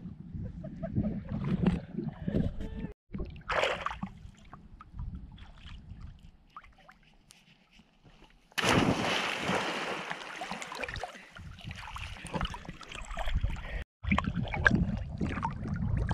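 Lagoon water sloshing and lapping around a camera held at the surface, with low wind rumble on the microphone. A loud rush of splashing water starts suddenly past the middle and fades over a few seconds.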